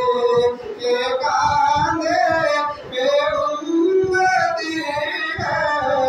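A man singing unaccompanied into a microphone, long held notes that slide and waver in pitch, with short breaths between phrases.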